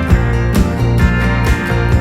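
Background music: a song with strummed acoustic guitar and a steady beat.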